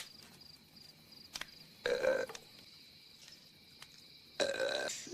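Two burps from a man: a short one about two seconds in and a longer, drawn-out one near the end.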